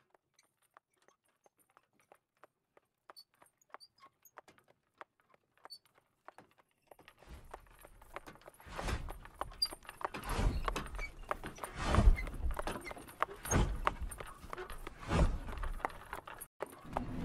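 Sound effect of a hoofed team pulling a cart: clip-clopping hooves with jingling, fading in from faint clicks. From about seven seconds in, a low rolling rumble joins, with heavier thuds roughly every second and a half.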